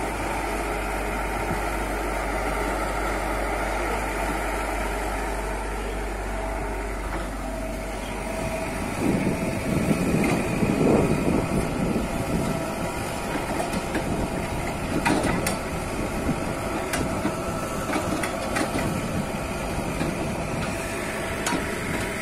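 Komatsu PC71 hydraulic excavator's diesel engine running steadily as it digs. About nine seconds in, the sound gets louder and rougher, and a few sharp knocks come through later on.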